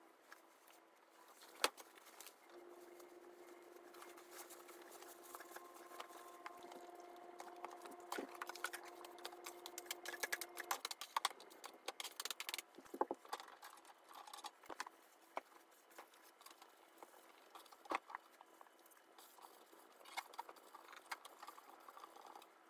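Faint scraping, rustling and scattered clicks of hands cleaning a bare plastic guinea pig cage floor, with litter gathered into a plastic dustpan and things set down and knocked on the cage base. A faint steady hum runs through about the first half.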